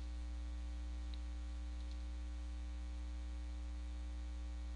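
Steady mains hum on the recording, with two faint clicks, about one and two seconds in.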